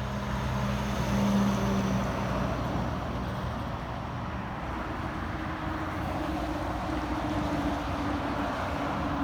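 Road traffic passing: steady tyre and engine noise from vehicles going by. One vehicle's engine hum fades out after about two and a half seconds, and another engine tone comes in about five seconds in, falling slowly in pitch as it passes.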